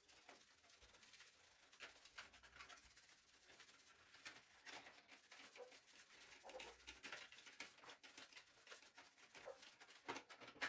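Faint scrubbing of brush bristles over wet model car parts: a dense, irregular run of small scratchy strokes, with a sharper click near the end.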